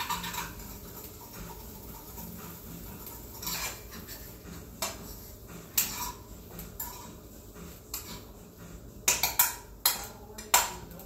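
Metal fork clinking and scraping against a frying pan while turning chicken pieces, with scattered taps and a quick run of louder, sharper clinks near the end.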